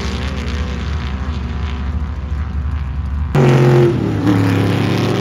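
Sand rail engine running hard as the car pulls away across the sand. A little over three seconds in, there is a sudden cut to another sand car's engine, close and louder, running steady and then dropping to a lower pitch.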